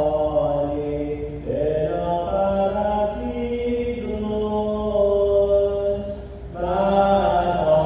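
Voices singing a slow devotional hymn in a chant-like style, holding long notes and moving slowly from one to the next, with a short break about six seconds in.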